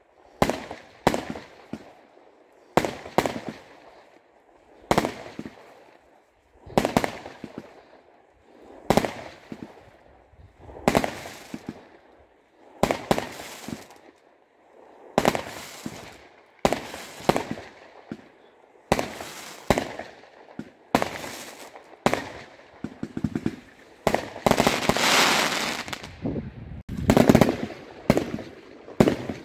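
Aerial fireworks going off in a steady sequence, sharp bangs about every second or two, often in close pairs. A longer spell of crackling comes about twenty-five seconds in.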